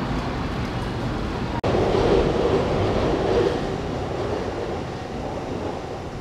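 Busy city street noise, a steady rumble of traffic. It cuts out for an instant about one and a half seconds in, then a louder passing-vehicle rumble swells and slowly fades.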